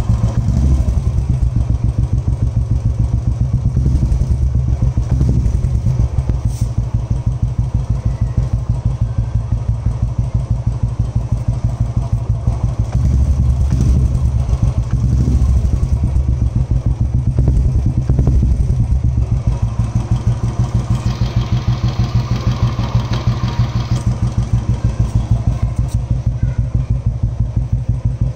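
Royal Enfield single-cylinder engine running through a Motowing short-barrel performance exhaust: a steady thumping idle beat, blipped up several times with the throttle in the first two-thirds.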